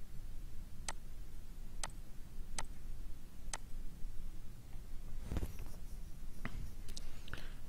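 Sharp clicks, about one a second, over a steady low hum, with a brief rustle about five seconds in and three quicker clicks near the end.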